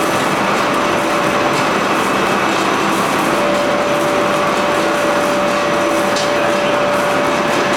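XGJ560 vertical ring-die wood pellet mill and its 90 kW electric motor running steadily while pressing sawdust into pellets, a loud even mechanical noise. A steady whine sets in about three seconds in and holds.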